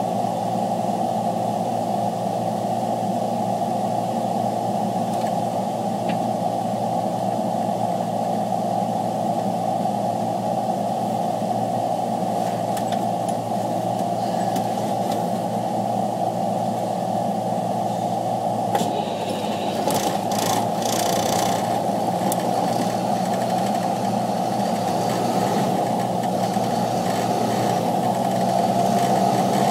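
Freightliner truck engine running steadily, heard inside the cab. About two-thirds of the way through there is some brief rustling and knocking, and the engine gets a little louder near the end.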